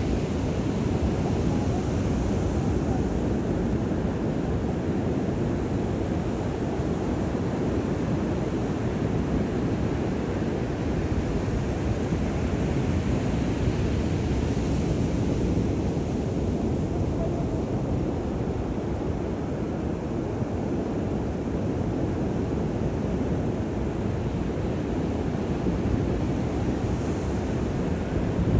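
Ocean surf breaking on the beach, a steady even roar, with wind buffeting the microphone.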